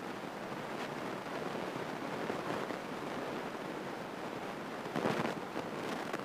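Steady, even hiss of a single-engine light airplane's cabin noise in flight, picked up through the headset intercom, with a brief faint voice about five seconds in.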